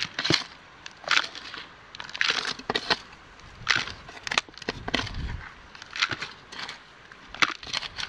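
Rocks and gravel being moved and dug through: irregular crunches and clacks of stone, roughly one or two a second.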